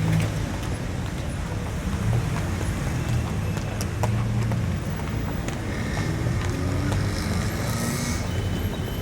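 Road traffic on a main country road: a continuous low rumble of vehicle engines and tyres going by, with a short hiss of a passing vehicle about eight seconds in.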